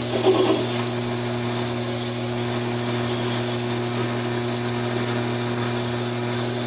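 Taig micro lathe running steadily, its motor humming as a quarter-inch twist drill bores into a spinning 1018 steel rod.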